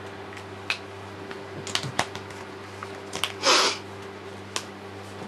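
A few light plastic clicks and taps of brush pens and their caps being handled, with a short, louder scratchy rustle about three and a half seconds in, over a steady low hum.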